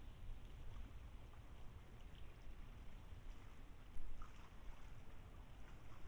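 Light rain falling, steady hiss with scattered small drip ticks over a low rumble; a single sharp tap about four seconds in.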